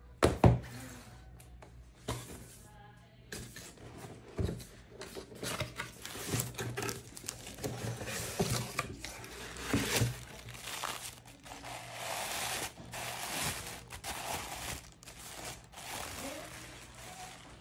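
Paper packaging and tissue paper rustling and crinkling as they are handled and unwrapped, with scattered sharp taps and knocks. A sharp knock right at the start is the loudest, and the rustling is densest about 8 to 13 seconds in.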